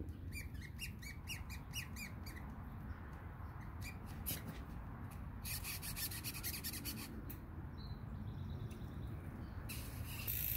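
OneUp composite flat pedal squeaking in short, high chirps as it is spun by hand on its spindle. The pedal is defective, squeaking after under two miles of riding. Midway there is a quick run of rapid clicks.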